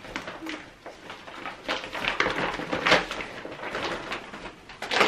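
Clear plastic pushchair rain cover being handled and turned over, crinkling and rustling unevenly, with a louder crinkle about three seconds in and another near the end.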